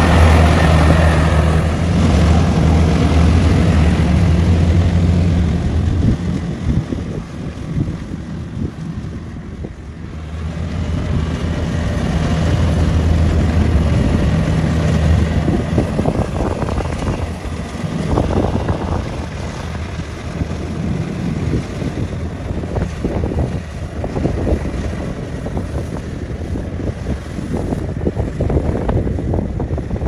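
Kubota DC-93 combine harvester's diesel engine running steadily as it harvests rice, a low hum that dips about six seconds in and comes back. In the second half wind buffeting the microphone takes over.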